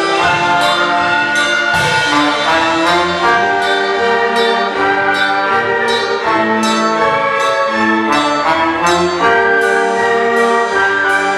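Orchestral music led by brass, with held notes moving over a steady percussive beat.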